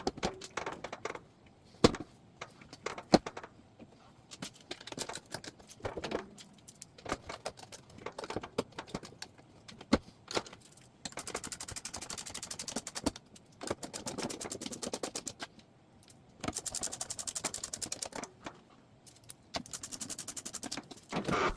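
Scattered clicks and knocks of a metal dishwasher front panel and its screws being handled, then, about halfway through, four bursts of fast, even clicking as the panel screws are driven in.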